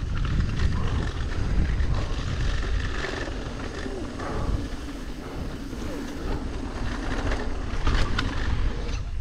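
Mountain bike rolling fast on a dry dirt trail: knobby tyres crunching and rattling over the packed dirt, with wind rumbling on the camera microphone. It eases off a little in the middle and grows louder again near the end.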